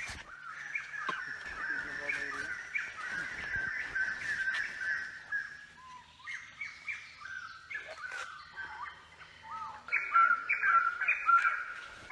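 Birds chirping and calling, many short notes repeated in quick succession, louder near the end.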